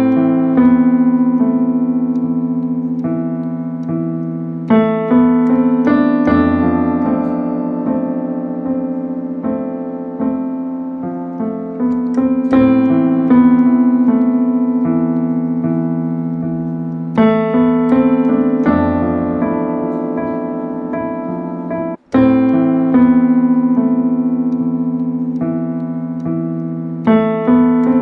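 Instrumental piano music playing slow, sustained chords, with new notes struck every second or two. The sound cuts out for a split second about 22 seconds in.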